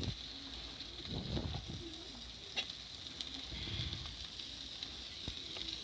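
Sliced onions, green chillies and garlic sizzling steadily in hot oil in a metal kadai, with a few light scrapes and taps from a slotted metal spatula.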